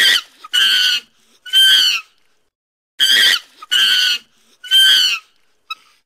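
Chimpanzee screaming: two bursts of three short, loud, high-pitched screams, with a pause of about a second between the bursts.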